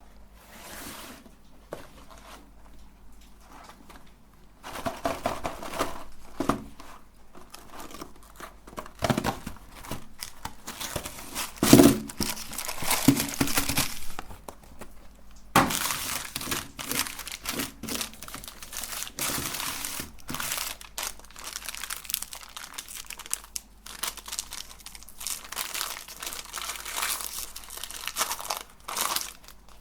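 Ice cream wrapper crinkling and tearing in irregular bursts as it is handled and opened, with a few louder crackles partway through.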